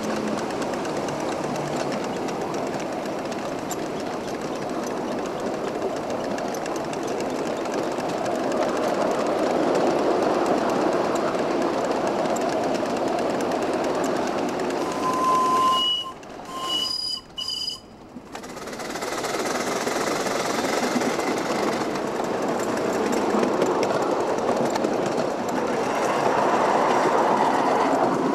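7¼-inch gauge coal-fired Wren steam locomotive running along the track with its driver aboard: a steady, loud mix of exhaust and wheels on the rails. The sound briefly drops out about two-thirds of the way through.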